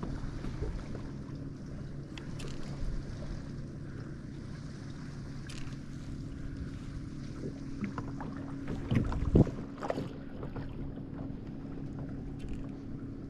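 Electric trolling motor of an Old Town Sportsman AutoPilot fishing kayak humming steadily, holding the boat on its spot, with water and light wind around the hull. A few light knocks, and a couple of heavier thumps on the hull about nine seconds in.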